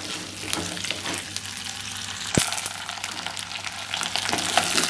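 Tinda (round gourd) pieces sizzling as they sauté on high heat in oil in a clay pot, with a wooden spatula stirring and clicking against the pot, and one sharp knock about two and a half seconds in. The sizzle grows louder near the end.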